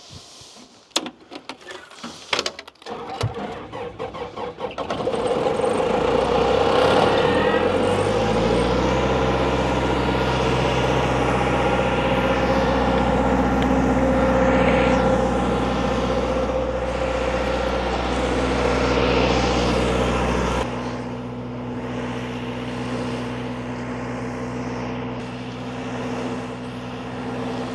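Diesel engine of a Sullair 225H towable air compressor starting after a few clicks, climbing up to speed over a few seconds and then running steadily. About twenty seconds in it drops to a quieter, lower, steady run.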